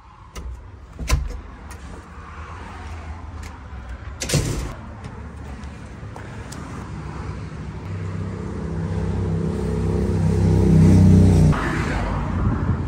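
Door clicks and a door knock about four seconds in, then a motor vehicle engine running steadily and growing louder for several seconds before cutting off suddenly near the end.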